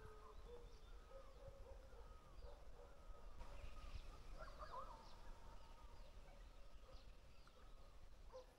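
Near silence over a low background rumble, with faint, scattered short chirping calls from wild animals.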